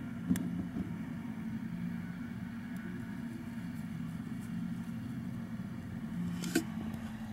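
A steady low hum, with a sharp click about a third of a second in and another near the end.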